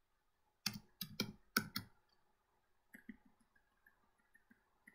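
Computer keyboard keys being typed: a quick run of about six sharp key clicks a little under a second in, then a few fainter taps from about three seconds on.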